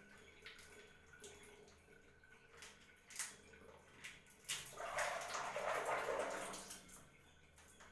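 Water splashing and dripping during a hair wash, with scattered small clicks and knocks, and a longer, louder splash about five seconds in that lasts around two seconds.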